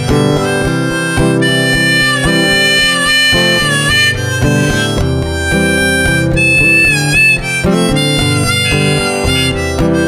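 Instrumental break of a folk-blues song: a harmonica plays a solo of long held notes with pitch bends over a strummed acoustic guitar.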